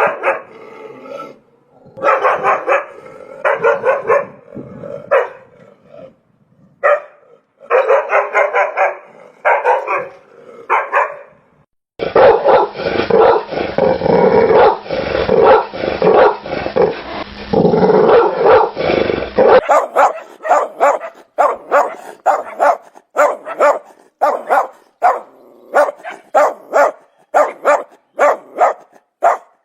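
Dogs barking in three edited-together recordings. First come bursts of several barks with short pauses, then several seconds of dense, nonstop barking, then a fast, steady run of single barks, about two a second.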